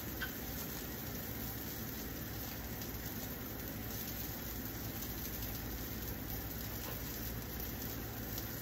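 Steady sizzle of food frying on a propane Blackstone flat-top griddle, an even hiss with faint crackle and a low hum underneath.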